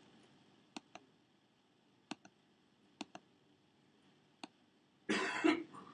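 Computer mouse button clicking: three quick double clicks about a second apart, then a single click. A short burst of voice follows near the end.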